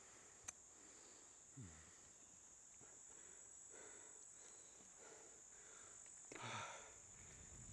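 Near silence with a faint steady high-pitched insect chorus. A single click comes about half a second in, and a short rustle near the end.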